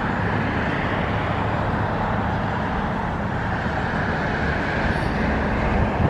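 Engine of a medium-duty delivery box truck running with a steady low rumble as the truck moves slowly through the street.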